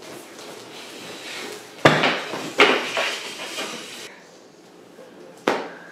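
Three sharp impact hits from a staged fistfight: two close together about two seconds in, each trailing off over a second or so, and a third, shorter one near the end.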